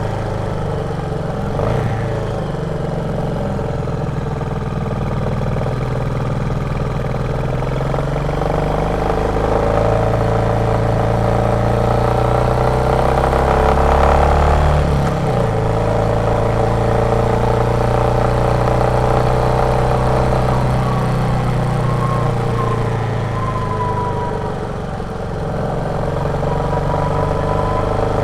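Royal Enfield Meteor 350's single-cylinder 349 cc engine running on the road. Its note rises steadily from about eight seconds in, drops off suddenly about halfway through, then holds steady.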